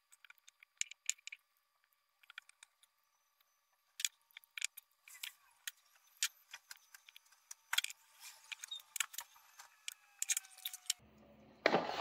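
Scattered light clicks, taps and scrapes of plastic and metal as a two-cell lithium-ion battery pack is worked out of its plastic casing and its black wrapping cut away with a utility knife. There is a louder knock near the end.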